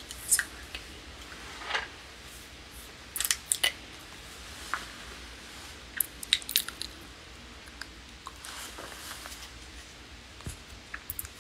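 Scattered short clicks and soft rustles of a phone being handled close to its microphone, over a low steady hum.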